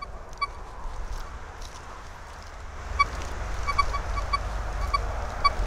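Golden Mask Coin Killer metal detector with a 9-inch Spider coil giving short, broken beeps: one early, then an irregular run in the second half. It is sweeping a pot of coins buried at 100 cm, at the edge of its depth range, and the signal is fairly uncertain.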